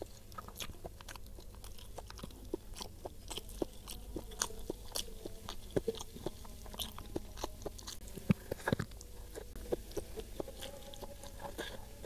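Close-miked chewing of a mouthful of nasi padang, with irregular small crunches and clicks as the food is bitten and chewed.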